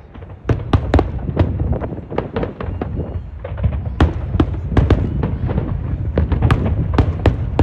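Fireworks going off: a rapid, irregular string of sharp bangs, several a second, over a continuous low rumble of further bursts.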